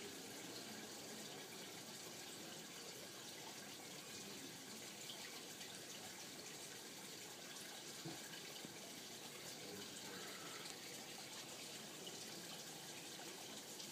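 Faint, steady sound of running water trickling and splashing.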